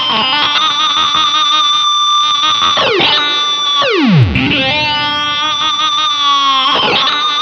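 Electric guitar through an EarthQuaker Devices Data Corrupter PLL synth pedal, its master oscillator set to two octaves up, playing two held synth notes. The first note wobbles in pitch at the start. Each note ends in a steep downward pitch dive as it fades.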